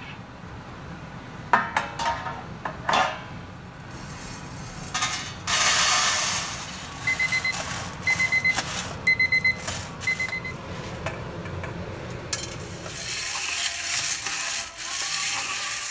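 A low steady hum runs under sharp metallic clatters near the start, then freshly roasted coffee beans pour into a steel tray with a rush about five seconds in, the end of the roast. Four short groups of electronic beeps follow, and near the end the hot beans rustle and clink as they are stirred by hand in a steel pot to cool.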